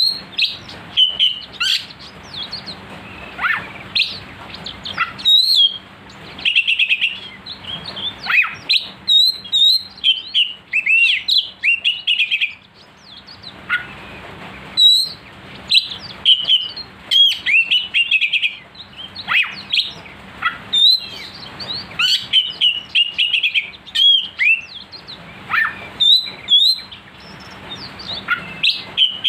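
Oriental magpie-robin (kacer) singing at full pace: runs of varied, sharp whistles and chattering phrases with short gaps between them. This is the fired-up 'gacor' song with a sharp voice ('suara pedas') that bird-keepers play as a lure to rouse other magpie-robins.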